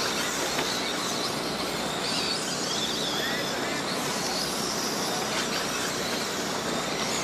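A pack of radio-controlled dirt oval race cars running laps, their motors whining high and rising and falling in pitch as they pass through the turns, over a steady rush of noise.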